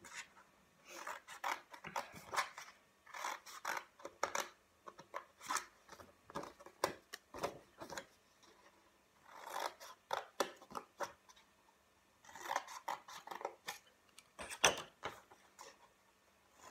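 Scissors snipping through thin card, cutting small triangles out of its edge: short runs of quick, crisp cuts with pauses between them, one especially sharp snip near the end.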